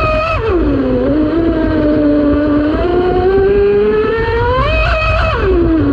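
The Pursuit 6S RC speedboat's Leopard 4074 2200 kV brushless motor and 45 mm propeller, whining at high speed. The pitch drops within the first second, climbs slowly over the next four seconds and drops again near the end, over a low rumble of the hull running on the water.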